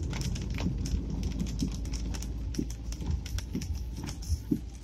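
Raindrops hitting the roof and windscreen of a moving car, heard inside the cabin: irregular ticks over a steady low rumble of the engine and tyres on the wet road.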